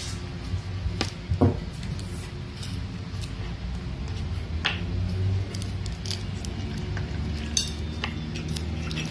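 Scattered light clicks and taps as a balut egg is handled and its shell picked apart by hand, with a few sharper knocks.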